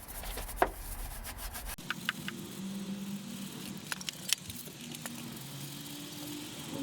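Stiff-bristled brush scrubbing cleaner into the dirty inner wheel arch, a steady rubbing with a few sharp clicks and knocks. A low hum underneath cuts off about two seconds in.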